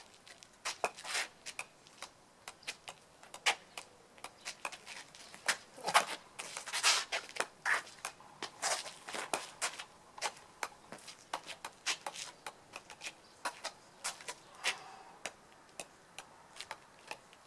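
A golf ball bouncing repeatedly on the face of a golf iron as it is juggled: sharp, irregular taps a few times a second, coming faster and louder in the middle.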